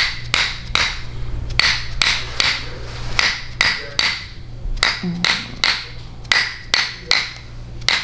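Hammer-therapy mallet tapping a steel instrument held against the muscles of a person's upper back: a rhythmic run of sharp metallic taps, each ringing briefly, about two to three a second with a few short pauses, over a low steady hum.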